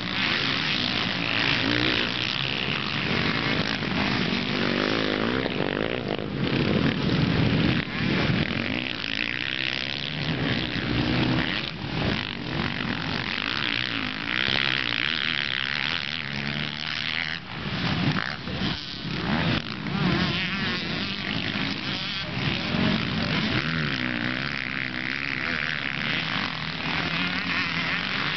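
Several motocross dirt bikes racing, their engines revving up and dropping off again and again in a high, buzzing whine that swells and fades.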